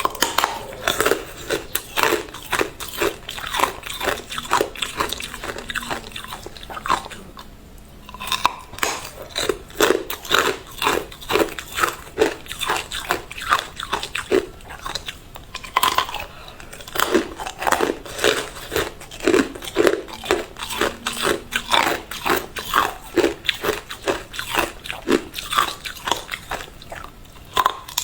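Hard clear ice being bitten and chewed close up: loud, rapid crunching with a brief lull about seven seconds in and again past halfway.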